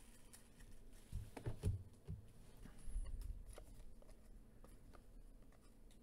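Stack of trading cards being handled and flipped through by hand: faint sliding and soft taps, a few slightly louder ones around one and a half seconds in.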